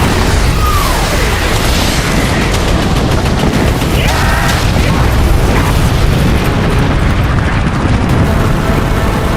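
Battle sound effects: rapid gunfire over a continuous deep explosion rumble. A falling whistle comes about half a second in.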